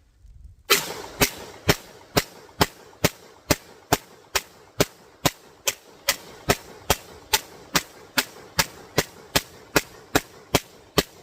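3D-printed MAC-11-style 9mm pistol firing in steady semi-auto, about two shots a second, starting a little under a second in.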